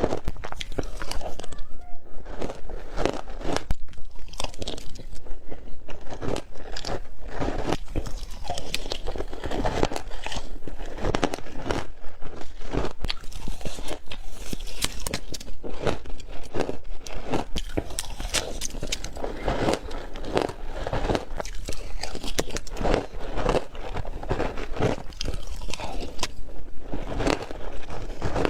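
Frozen matcha ice being bitten and chewed: a continuous run of crisp crunches, several a second.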